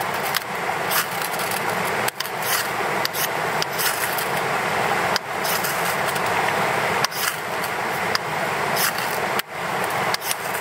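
Knife spine scraped down a ferrocerium rod again and again, about one to two scraping strokes a second, throwing sparks onto wood shavings to light a fire. A steady hiss runs underneath.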